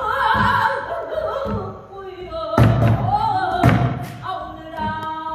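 Pansori singing by a female vocalist, accompanied by a buk barrel drum. The drum gives deep thumps at intervals, then two or three sharper, louder strokes past the middle.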